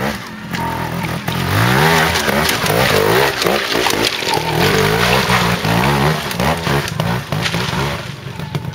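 Trials motorcycle engine revving in repeated short rising and falling bursts as it climbs a steep rocky section, loudest as it passes close by from about two seconds in, then fading as it climbs away near the end.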